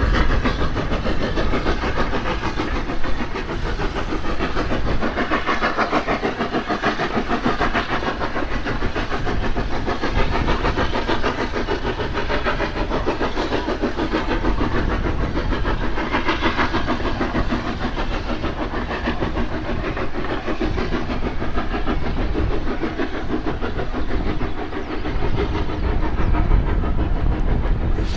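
Hunslet saddle tank steam locomotive under way with a passenger train, its exhaust beating steadily, over a low rumble.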